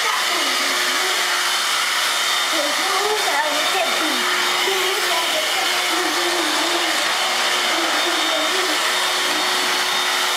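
Corded upright vacuum cleaner running steadily, with a child's voice singing along over the motor in a wavering line.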